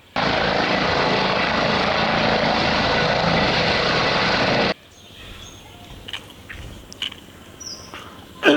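Helicopter sound, a steady whirring engine-and-rotor noise that starts sharply and cuts off abruptly after about four and a half seconds, followed by faint clicks and a few short high chirps.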